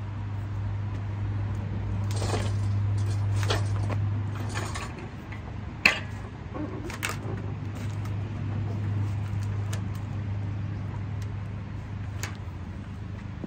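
Scattered metallic clinks and rattles as an engine is shifted on its lift and worked into a van's engine bay, with one sharp clank about six seconds in. A steady low hum runs underneath.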